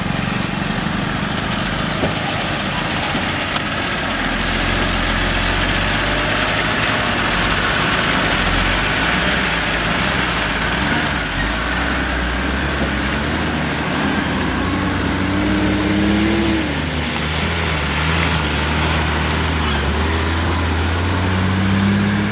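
Heavy diesel trucks running slowly over a potholed, water-filled road, engines at low revs with tyre noise on the wet surface; about two-thirds of the way through, one engine's pitch rises and then drops.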